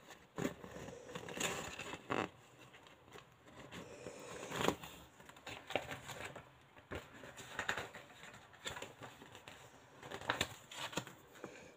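Faint, scattered rustling and tapping of paper and small objects being handled, a short sound every second or so.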